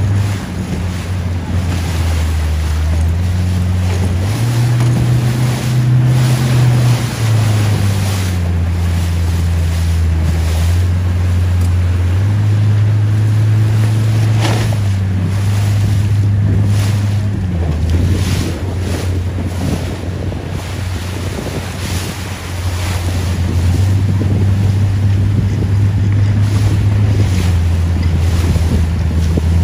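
Wind buffeting the microphone over water rushing and splashing along the hull of a sailboat under way in choppy water, with occasional louder gusts or splashes.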